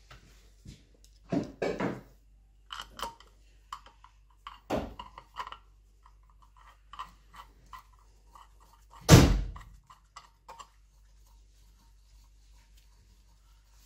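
Metal parts and hand tools knocking and clicking during gearbox assembly, with one loud thunk about nine seconds in.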